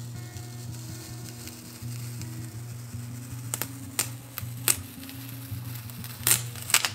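Transfer tape being slowly peeled off a vinyl stencil on a plastic disc: a faint crackle, with a few louder crackles from about halfway through. Soft background music with low held notes plays underneath.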